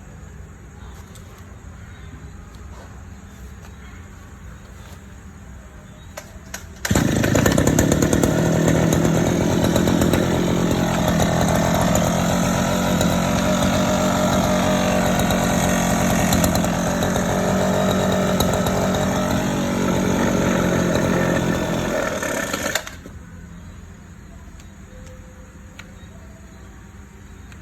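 Small two-stroke chainsaw engine starting suddenly, running loud and fairly steady for about sixteen seconds, then shut off abruptly.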